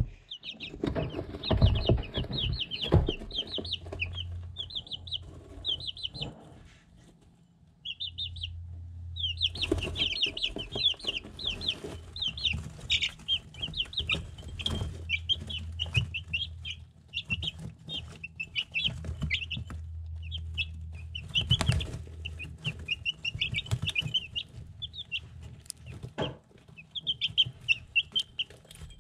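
Three-week-old chicks peeping in quick runs of short, high chirps, pausing for about a second partway through and then starting again. Sharp taps and knocks run under the chirps, loudest in the first few seconds, from pecking at a ceramic feed dish and handling close to the camera; a low hum comes and goes.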